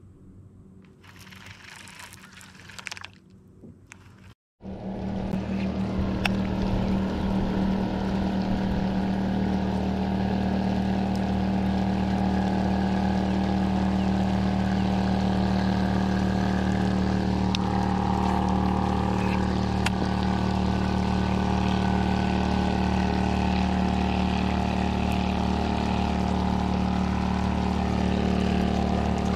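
A boat motor running steadily at an even hum, over the hiss of heavy rain falling on the water. It starts suddenly about four and a half seconds in; before that there are only faint quiet sounds.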